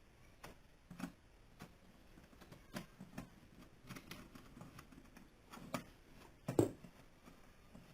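Scattered light clicks and taps of hands working at a bench as a cable is connected to a switch-mode power supply, with one firmer knock about two-thirds of the way through.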